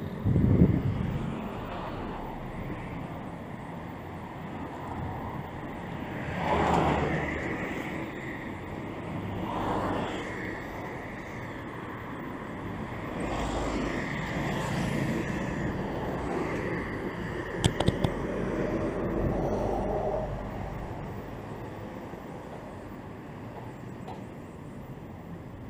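Urban street traffic: cars pass one after another, each rising and fading over a second or two. Wind buffets the microphone in the first second, and a few sharp clicks come about two-thirds of the way through.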